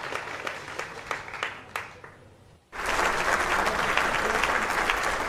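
Applause, a dense patter of many hands clapping. It fades away about two seconds in, then cuts back in suddenly at full strength a moment later.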